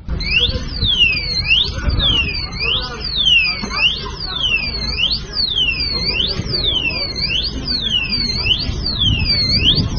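Ambulance siren sounding a fast, repeating falling-and-rising sweep, loud over crowd voices and street noise.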